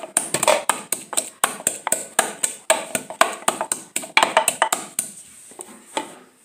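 Wooden pestle pounding in a wooden mortar, grinding chili pepper into a garlic and ginger paste: rapid, even knocks at about three to four a second that stop about five seconds in.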